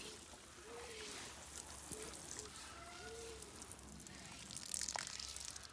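Water being poured from a container onto garden plants and soil, a faint splashing trickle. A few short faint calls sound in the background.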